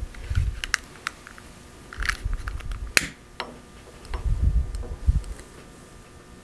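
A long-nosed butane utility lighter clicking several times as it is triggered to light votive candles, the sharpest click about three seconds in. Low rustling thuds of a sweater brushing a clip-on microphone come and go.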